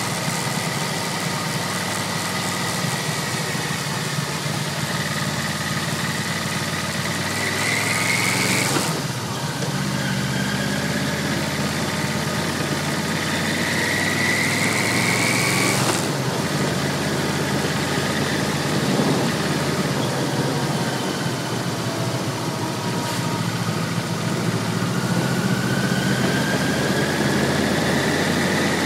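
Yamaha V-Max 1200's V4 engine running under way with wind rush. Its pitch climbs as the bike accelerates and drops at gear changes about nine and sixteen seconds in, then climbs again near the end.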